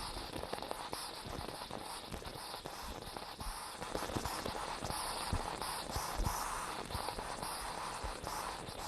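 Stovetop moka pot sputtering and crackling, with many small irregular pops and clicks over a steady hiss.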